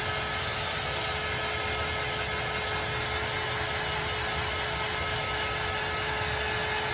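Handheld heat gun running steadily, its fan blowing with a constant whine at one pitch, as it dries a layer of chalk paste.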